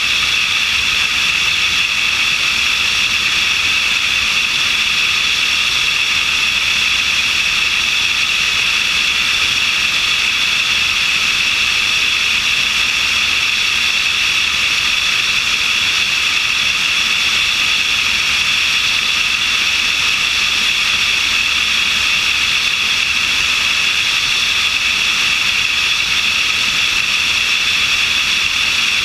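Steady, loud rush of airflow and engine noise from a light aircraft in level flight, picked up by a camera mounted on the wing.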